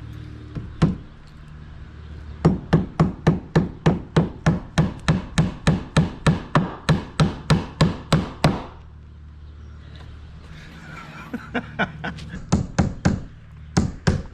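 Hammer driving nails with quick, even blows, about four a second, in two runs with a pause between, over a low steady hum.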